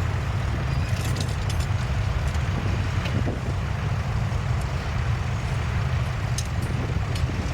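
Tractor engine running steadily, with a deep, even pulse.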